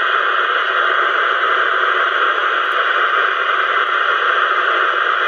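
Audioline 27 MHz CB radio receiver giving out a steady, loud static hiss on the 11-metre band, with no station's voice coming through.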